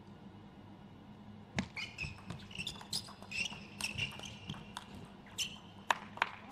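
Table tennis rally: the plastic ball clicking sharply off the rubber-faced bats and the table at an uneven pace, starting about a second and a half in, with shoe squeaks on the court floor during the rally. A few more clicks near the end as the loose ball bounces.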